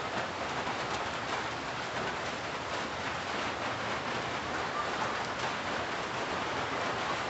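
Steady rain falling on tree foliage: an even hiss with a fine patter of drops.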